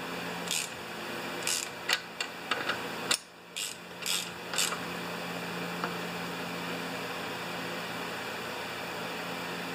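Ratchet wrench clicking in short runs as it turns the clutch nut on a Homelite XP-1020 chainsaw, the engine being turned over against the stop. About five seconds in the clicking stops, leaving a steady low hum in the background.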